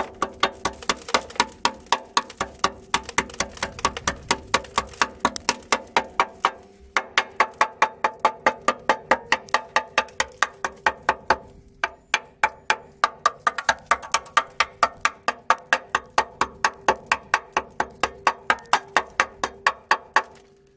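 Hammer blows on the rusted steel rear chassis rail of a Land Rover Discovery 2, about four sharp, ringing strikes a second, knocking at rotten metal and loose paint. The hammering pauses briefly twice, about a third and about halfway through.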